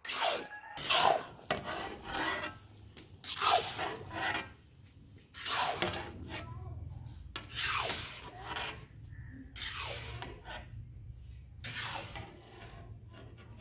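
A spoon stirring and scraping thick carrot halwa in a cooking pot, in irregular scraping strokes roughly once a second. The halwa is being cooked down until the ghee separates from it.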